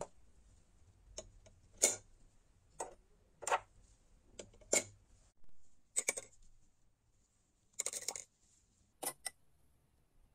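Small brass kettle parts clinking against a ceramic bowl as they are set down into a sulfuric acid bath. There are about ten sharp, irregularly spaced clinks, with a quick rattling run about eight seconds in.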